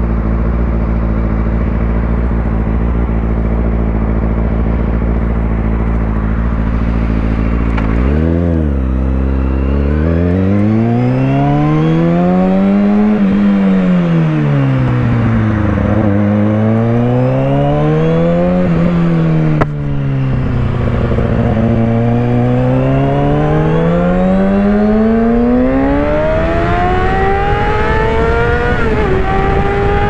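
Inline-four supersport motorcycle engine idling steadily, then blipped once and pulled away. Its note rises and falls several times with the throttle, then climbs steadily near the end.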